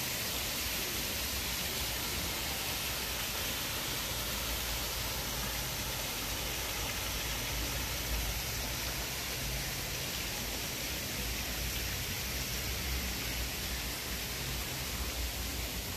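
Steady rushing hiss of water running from the pool's slides and artificial rock waterfall, over an uneven low rumble.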